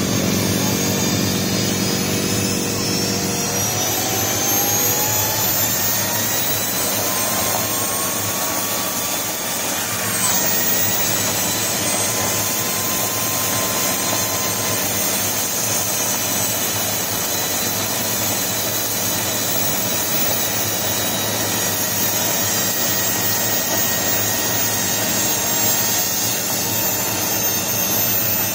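Turbocharger on a wood-burning barrel stove spinning up, its high whine climbing in pitch over the first several seconds, then running on as a steady whine over a rushing hiss of air, with a brief dip about ten seconds in.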